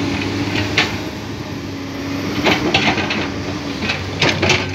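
Komatsu PC200 hydraulic excavator's diesel engine running steadily as its bucket digs into rocky ore. Clatters of stones and scraping from the bucket come about a second in, around two and a half to three seconds in, and again near the end.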